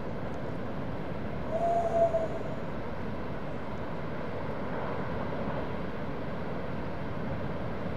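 Steady wash of noise from large ocean surf breaking, with a brief held tone about two seconds in.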